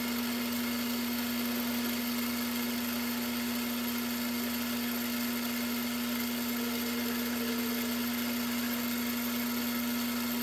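Metal lathe running with a steady, even hum while a turning tool takes a facing cut across the end of a metal bar.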